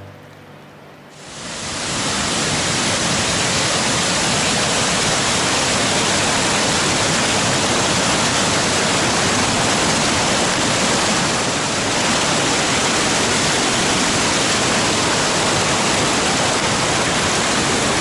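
Loud, steady rush of a rain-fed ephemeral waterfall's torrent of white water cascading over rocks close by, starting suddenly about a second in after a quieter moment.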